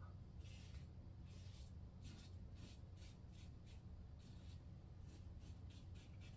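Muhle R41 open-comb safety razor cutting stubble through shaving lather: faint, short scraping strokes, a few a second.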